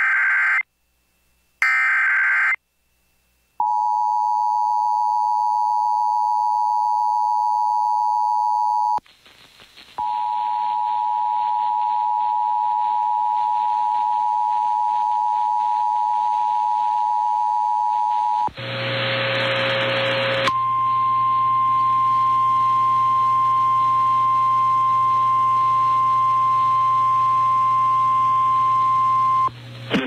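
Emergency Alert System tornado warning tones on NOAA Weather Radio: the last two SAME header data bursts, then the steady two-tone EAS attention signal for about five seconds. After a one-second break the two-tone signal sounds again for about eight seconds over radio hiss. A two-second burst of static and hum follows, then the single-pitch Weather Radio warning alarm tone holds steady for about nine seconds.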